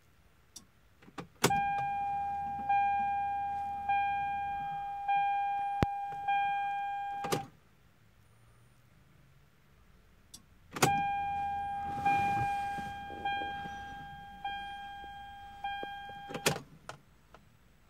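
Dashboard warning chime of a 1997 Toyota Supra dinging about five times at roughly one-second intervals when the ignition key is switched on, cut off by a click as the key is turned back. The key cycle repeats a few seconds later, with the same run of dings between two clicks.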